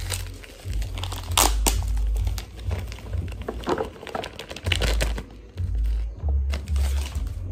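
A thin plastic bag crinkles and rustles as dried bean curd skin strips are shaken out of it into a bowl. Irregular crackles come with low thuds from handling.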